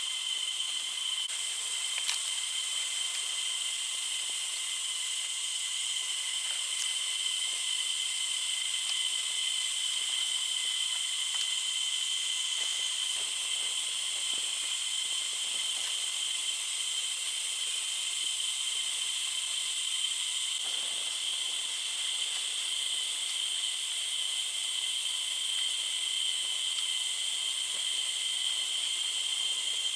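Steady high-pitched chorus of forest insects, a continuous shrill drone with a few faint clicks.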